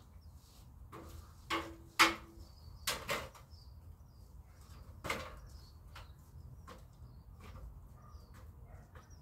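A handful of sharp knocks and clanks from an aluminium stepladder being climbed, the loudest with a brief metallic ring about two seconds in, more just after three seconds and once about five seconds in.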